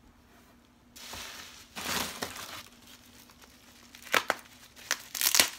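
Plastic bubble wrap crinkling and rustling as a wrapped item is lifted out of a cardboard box and unwrapped, with a few sharp crackles in the second half.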